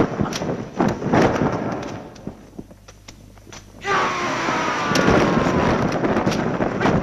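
Dubbed kung fu film fight sound effects: loud rushing whooshes with sharp hits for about two seconds, a brief lull, then another long whoosh with a slowly falling tone starting about four seconds in.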